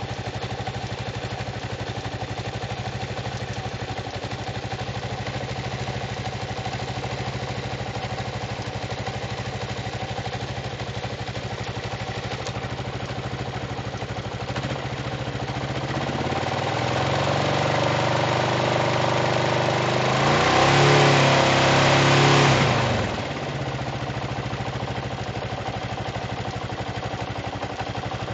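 Kawasaki KLR650 single-cylinder engine, bored out to 685, idling with a rapid top-end tick. About halfway through it is revved up, held high for a few seconds, then dropped back to idle. The tick comes from a weak spring on the valve decompressor.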